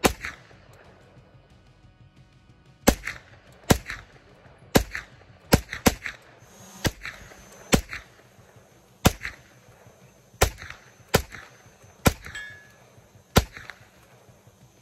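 Grand Power Stribog 9mm pistol-caliber carbine firing single semi-automatic shots, about fourteen at an uneven pace, some in quick doubles and triples, each followed by a short echo.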